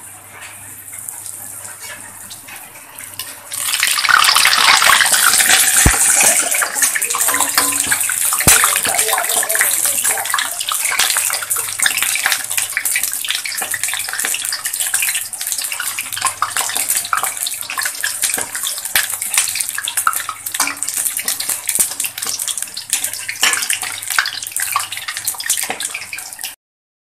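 Banana-batter fritters deep-frying in hot oil in a wok: a steady, dense sizzle and crackle of bubbling oil that gets much louder about three and a half seconds in. It cuts out abruptly just before the end.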